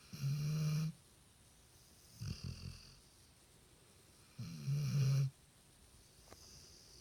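Pit bull snoring in its sleep: two loud, low-pitched snores, each just under a second long, about four seconds apart, with a softer, shorter snore between them.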